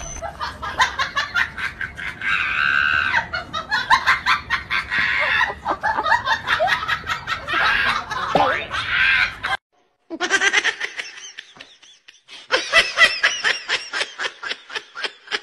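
People laughing in rapid, repeated bursts, broken by a brief silence about ten seconds in before the laughter resumes.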